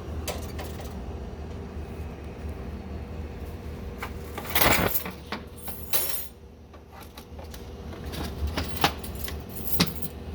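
Coffee bags being handled and coffee poured into the coffee machine's hoppers: a few short crinkling, rattling noises, the longest about halfway through, over a low steady hum.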